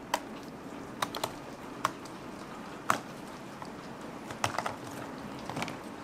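A thin sheet of set stone-ground chocolate snapping and cracking as gloved hands break it apart, giving about ten sharp, irregular clicks, some in quick clusters of two or three.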